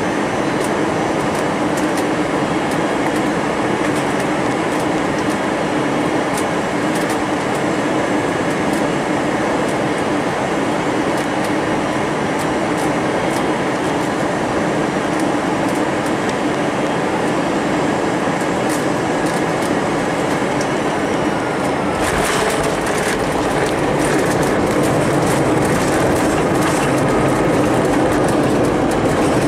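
Airliner cabin noise on final approach: steady engine and airflow noise with a low hum. About three-quarters of the way through, the wheels touch down and it turns abruptly to a heavier, slightly louder rumble with rattling as the plane rolls along the runway.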